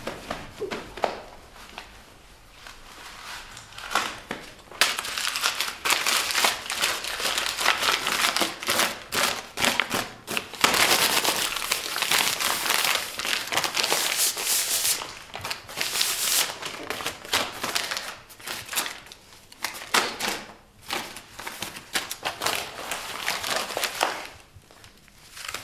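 A sheet of paper being crumpled and crinkled in the hands: light handling at first, then a dense crackling from about five seconds in that carries on in uneven bursts and thins out near the end.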